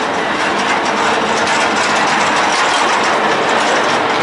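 Steady, loud rushing noise of a passenger ferry underway, heard on its open deck: the boat's running noise and the water, with no distinct events.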